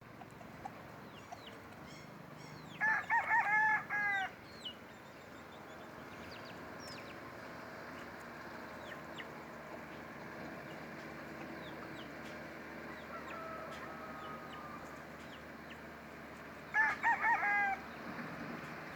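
A rooster crowing twice, first about three seconds in and again near the end, each crow broken into several linked notes. Faint high chirps and a steady low background sound run between the crows.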